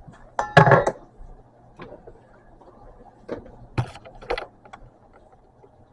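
Toaster oven being opened and metal cake pans handled: a loud ringing clank about half a second in, then several lighter clicks and knocks, over a steady low hum.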